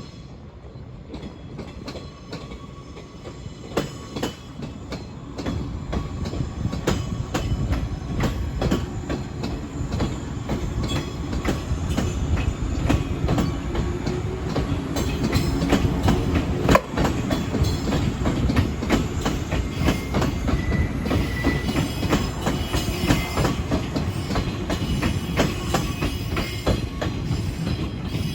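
JR East 185 series electric multiple unit running along the yard track, its wheels clicking over rail joints and points. It grows louder over the first several seconds, and there is a brief wheel squeal about twenty seconds in.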